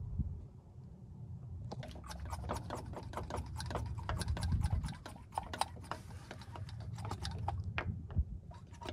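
Hand-held vacuum brake bleeder pump squeezed at a front brake caliper, drawing brake fluid and air out through the bleeder screw. From about two seconds in it gives quick, irregular clicking and crackling, several clicks a second.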